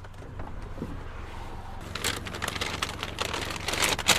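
Steady low hum of an idling car. About halfway through, a run of rustling and sharp clicks starts, with a sharp knock near the end.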